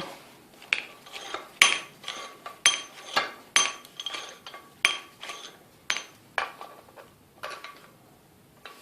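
A bench vise being tightened on a steel pipe cutting guide: about a dozen sharp, ringing metal clinks, roughly two a second, thinning out toward the end.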